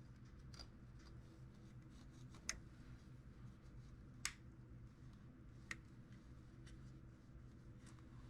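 Near silence broken by a handful of faint, sharp clicks and taps, spaced a second or two apart, from handling pistol parts and cleaning tools during a quick cleaning with swabs.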